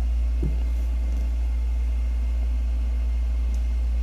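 Steady low rumble, with a single soft knock about half a second in.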